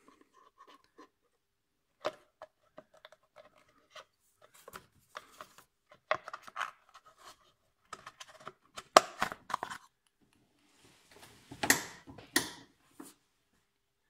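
Hand work on engine parts: irregular clicks, light knocks and scrapes as tools and parts are handled. A sharp knock comes about nine seconds in, and a louder scraping noise comes near the end.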